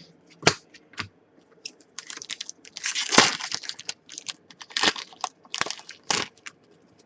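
Hockey card packs and cards being handled: a run of crinkling, rustling bursts and small clicks, loudest about three seconds in, from a foil pack wrapper and cards sliding against each other.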